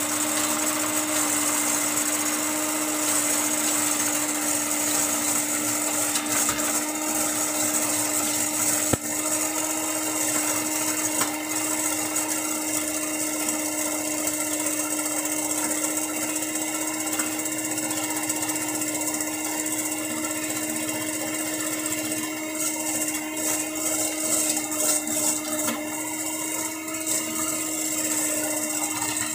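Electric hand mixer running steadily at one speed, its motor humming at a constant pitch while the wire beaters whip egg mixture in a stainless steel bowl. In the last few seconds the beaters rattle and tick against the sides of the bowl more often.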